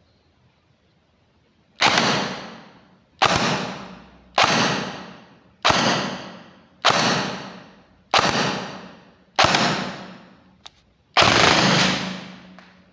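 Converted AEG airsoft gun with an APS Edge SDU 2.0 gearbox firing on full auto: seven short bursts about a second apart, then one longer burst near the end.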